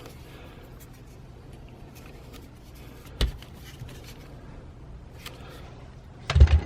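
Handling of power-tool attachments: a sharp click about three seconds in, a few faint ticks, and a louder clatter of knocks near the end as pieces are moved and set down.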